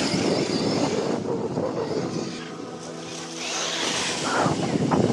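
Arrma Talion brushless RC car driving through dry leaves: a noisy rush of leaves and tyres with a cluster of sharp rustling crunches near the end.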